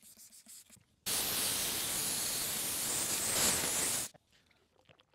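Compressed-air blow gun hissing in one steady blast of about three seconds, blowing water off a freshly wet-sanded plastic headlight lens; it starts abruptly about a second in and cuts off sharply.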